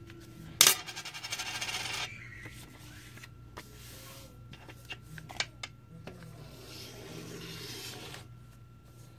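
A quarter worked against a hard object to close it: a sharp click, then a rapid scraping rattle lasting about a second and a half, scattered light clicks, and a second softer scrape later on.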